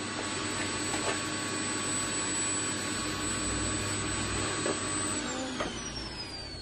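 An electric motor runs steadily with a rush of air and a high whine. About five seconds in it is switched off, and its whine falls as it spins down.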